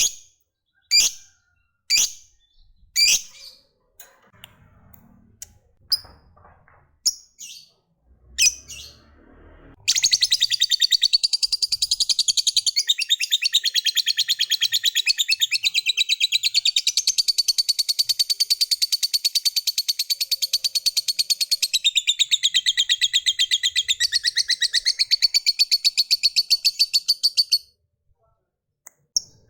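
A lovebird calling. It gives sharp single chirps about once a second, then breaks into a long, fast chattering trill (the prized 'ngekek panjang') that runs for about seventeen seconds before stopping abruptly.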